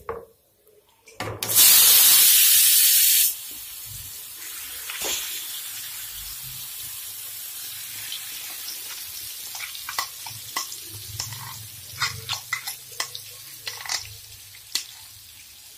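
Marinated chicken hitting hot oil in a frying pan: a loud burst of sizzling about a second and a half in that drops off after a couple of seconds to a steady, quieter frying hiss. Short scrapes and taps of a spoon on the bowl and pan sound over the hiss.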